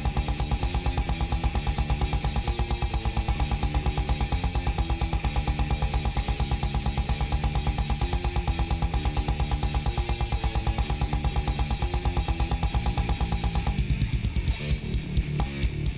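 Fast rock music with drums and guitar and a steady pounding beat.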